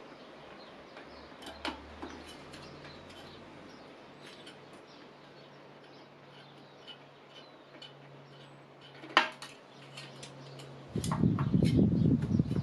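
CPU cooler mounting hardware being handled and fitted: scattered light clicks and taps of small parts, one sharper click about nine seconds in, then a louder rustling clatter near the end.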